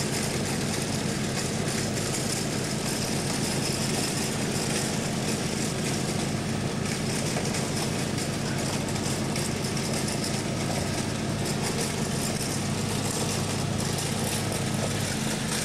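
Riding lawn mower engine running steadily at full throttle, with a constant hiss over it.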